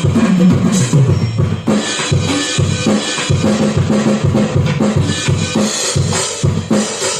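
Acoustic drum kit being played: a fast tom roll falling in pitch in the first second and a half, then a steady beat of bass drum, snare and cymbals.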